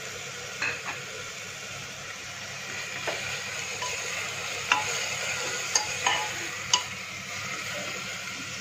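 Chopped onion, tomato and cumin frying in hot oil in an open pressure cooker, a steady sizzle. A steel ladle stirs the mix, clinking sharply against the pot about seven times.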